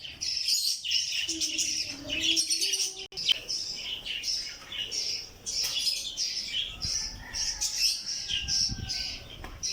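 A flock of small pet parrots (Australian parrots) chirping and chattering nonstop, many short high calls overlapping.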